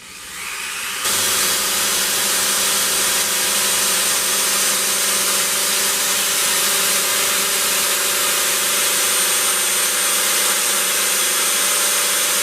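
Small power tool with a cut-off wheel spinning up over about a second and then running steadily at speed with a high whine as it cuts through a plastic fender.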